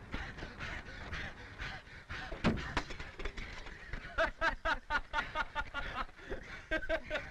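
Hissy old film soundtrack with a single bang about two and a half seconds in. From about four seconds in comes a run of quick, high-pitched women's giggling.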